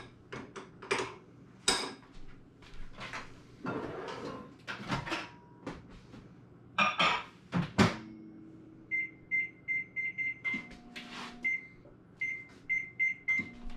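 Microwave oven being used: scattered knocks and clatters of handling for the first several seconds, then the oven's steady hum from about eight seconds in and a run of short, high keypad beeps, heating a dish of butter to melt it.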